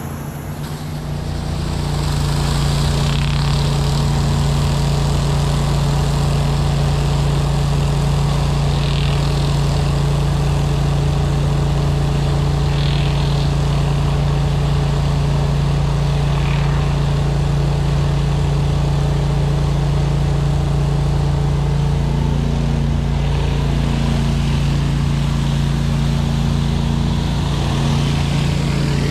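Commercial pressure-washing rig's engine running steadily, with the hiss of high-pressure water spraying on concrete.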